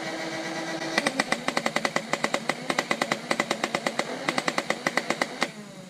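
Nerf Rival Prometheus flywheel blaster: its motor-driven flywheels spin with a steady whine, then about a second in it fires full auto, a rapid string of shots with two short breaks. The firing stops near the end and the flywheel whine falls in pitch as they wind down.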